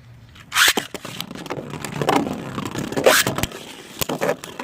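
Two Beyblades, one 3D-printed, launched into a stadium and battling: a sharp launch about half a second in, then the spinning tops scraping around the arena with several hard collisions, the loudest about three seconds in.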